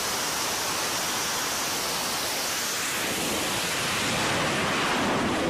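F/A-18 Super Hornet jet engines running on an aircraft carrier's flight deck: a steady, even rush of noise that grows a little heavier in the low end near the end.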